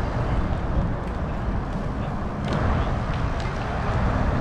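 Steady low outdoor rumble, wind on the microphone mixed with distant traffic, with a few faint clicks about two and a half seconds in.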